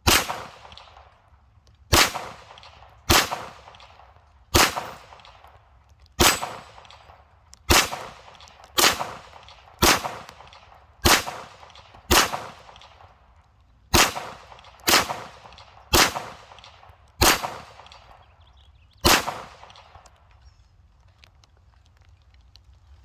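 AR-15 rifle fired in slow single shots, about fifteen rounds one to two seconds apart, each crack trailing off in an echo. The shots stop a few seconds before the end, and the target gives no ding when hit.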